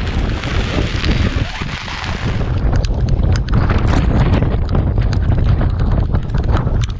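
Storm wind buffeting the microphone hard, with driving rain. About two and a half seconds in, the high hiss thins out and a heavy low rumble with scattered sharp ticks takes over.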